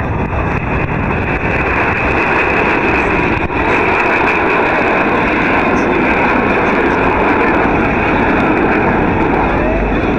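Jet engines of the US Air Force Thunderbirds' F-16 Fighting Falcons flying over in formation: a loud, steady roar that swells over the first couple of seconds and then holds.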